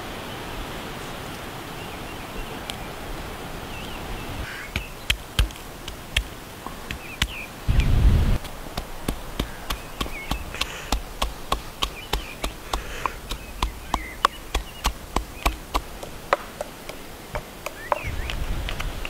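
Wooden pestle pounding in a wooden mortar: repeated sharp knocks, about two to three a second, starting a few seconds in.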